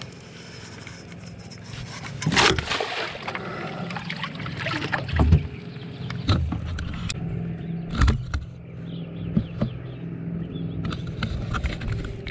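Water splashing and hard knocks as a Murray cod is scooped into a landing net beside a boat and the net is handled against the hull. The knocks come several times, loudest about two and eight seconds in, over a steady low hum.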